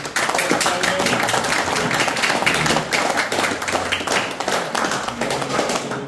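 An audience applauding: many hands clapping, starting suddenly and dying down near the end.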